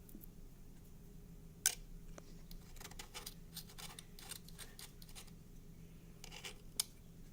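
Leftover rubber-foot adhesive being scraped and picked off a MacBook Pro's bottom case: a run of short, faint scratchy strokes, with a sharper click a little under two seconds in and another near the end.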